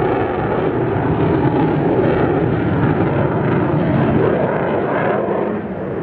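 F-22 Raptor's twin Pratt & Whitney F119 turbofan engines passing overhead in flight: loud, steady jet noise that eases slightly near the end.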